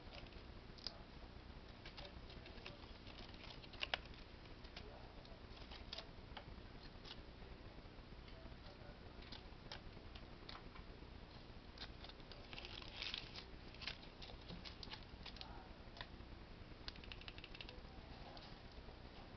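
Faint rustling and crinkling of a plastic bag dangled for a Persian kitten and batted by its paws, with scattered light ticks and taps; short louder bursts of crinkling come about two-thirds of the way in and again near the end.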